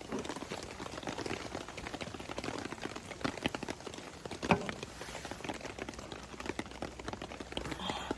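Rain pattering on a camping tarp: a dense, irregular run of drops, with one louder tap about four and a half seconds in.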